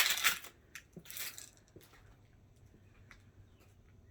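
Two footsteps on straw-covered ground, about a second apart, followed by a few faint clicks.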